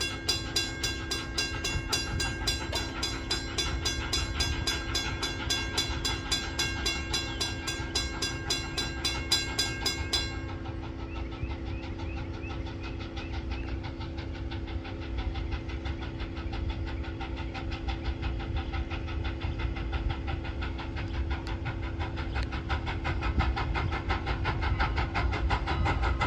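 Grade-crossing warning bell ringing in rapid, evenly repeated strikes as Strasburg Rail Road No. 89, a 2-6-0 steam locomotive, approaches; the train's sound grows louder over the last few seconds.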